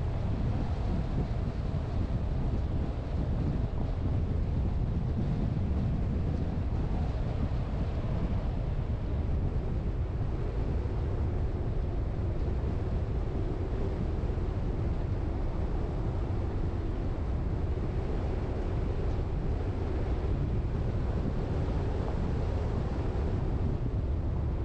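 A car being driven at a steady pace: continuous low road and engine noise with wind on the microphone, unchanging throughout.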